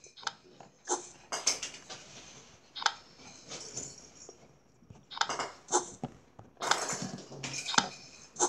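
A scatter of short clicks and clinks at irregular intervals: tiles being tapped and flipped in a tablet memory-matching game.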